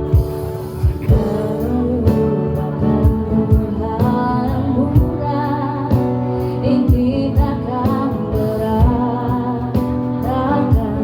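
Live street band performing a song: a singer's voice over guitar, with a regular low percussive beat.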